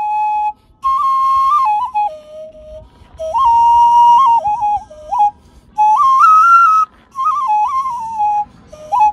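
A small handheld vessel flute, ocarina-like, played solo: a clear, nearly pure-toned melody in short phrases with brief pauses between them. The notes step up and down, the highest reached a little past the middle.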